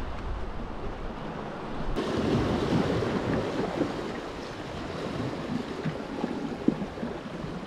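Ocean swell washing and surging in and out among coastal rocks, rising and falling, with wind buffeting the microphone in the first two seconds. A single short click near the end.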